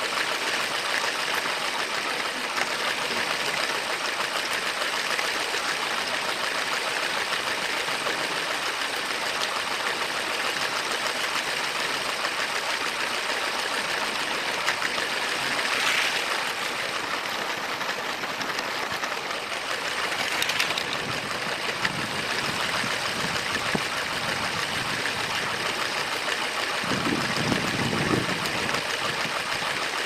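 Motorised LEGO train running on plastic track: a steady whirring rattle of the small train motor and wheels, with a lower rumble near the end.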